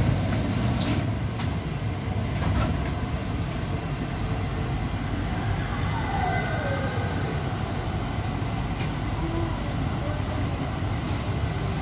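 EP2D electric train running with a steady low rumble, a single falling electric whine about six seconds in, and a few short hisses near the start and the end.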